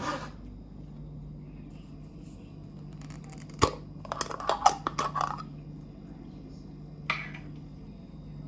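Kitchen handling sounds during food preparation: a sharp click about three and a half seconds in, then a short run of clattering and tapping, and a brief scrape near the end, over a steady low hum.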